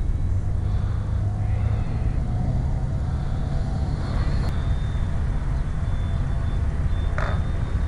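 Steady low rumble of wind on the microphone, with the faint whine of a Dynam F6F Hellcat RC plane's electric motor and propeller in flight overhead. A brief scuffing sound comes near the end.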